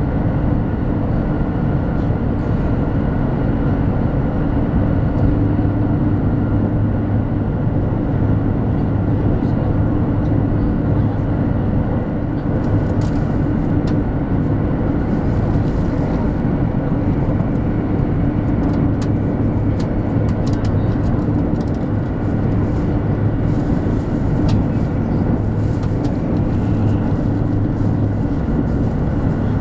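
Steady running noise inside the passenger cabin of a 200 series Shinkansen travelling at speed: a continuous loud rumble with a low, even hum, with a few faint clicks in the second half.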